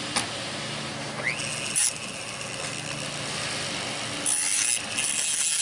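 Foredom rotary tool with an abrasive cutoff wheel: a rising whine about a second and a half in as it spins up, then steady running, and near the end a louder, harsher grinding as the wheel cuts into the steel trigger guard of an AK receiver.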